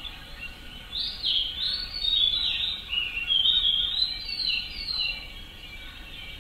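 A songbird singing a quick series of falling whistled notes that lasts about four seconds, over a steady high-pitched background of forest sound.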